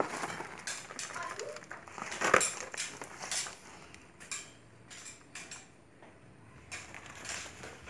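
Potting mix of compost and burnt rice husk poured from a metal bucket into a plastic pot, then pressed down around an orchid by hand: irregular scraping, rustling and knocks of the bucket against the pot, loudest about two seconds in.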